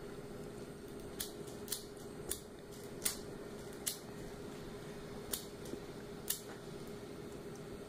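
A handheld lighter clicked about eight times at uneven intervals without staying lit: the lighter is failing.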